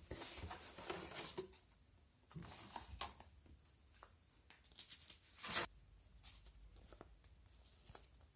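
Hands handling the set's packaging and parts: bursts of rustling with scattered clicks, the loudest a single sharp click about five and a half seconds in.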